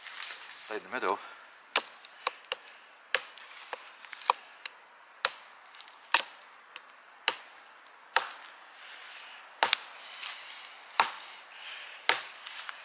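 Small hatchet chopping a fallen branch into short lengths for firewood: a string of sharp wooden strikes at an uneven pace, about one to two a second.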